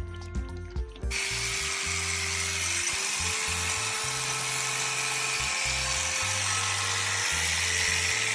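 Electric sheep shears switched on about a second in and running steadily with a high buzzing hiss, over background music.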